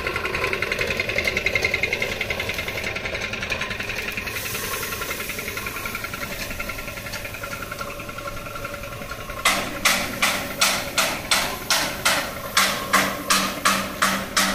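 Handheld electric paint spray gun running with a steady buzz while spraying red oxide primer onto a steel frame. About two-thirds of the way in, a regular knocking of about two and a half beats a second starts over it.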